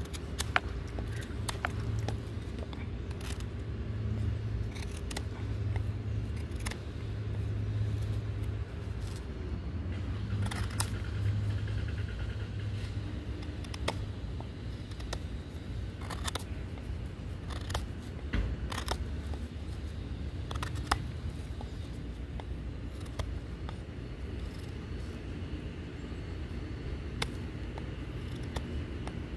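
Pocket knife being handled and used: scattered sharp clicks and snaps over a steady low hum.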